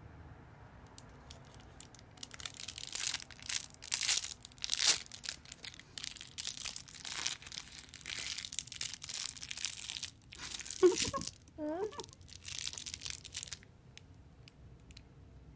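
A clear plastic lollipop wrapper crinkling and rustling in a toddler's hands, in irregular handling bursts that stop shortly before the end. A short wavering vocal sound from the toddler comes about 11 seconds in.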